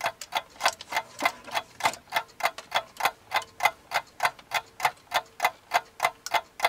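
Small portable fan heater running on its fan setting: a faint steady hum with an even mechanical ticking, about three ticks a second.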